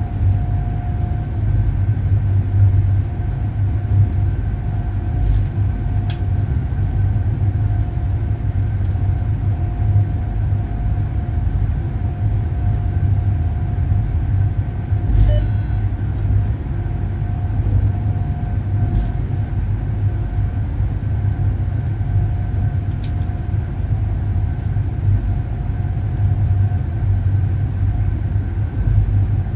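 Electric train running through a tunnel: a steady low rumble of wheels on rails, with a faint steady high tone over it and, twice, a sharp click.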